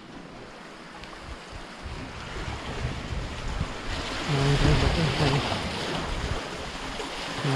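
Seawater washing and splashing among shoreline rocks, with wind on the microphone, growing louder about halfway through; a man's voice briefly in the middle.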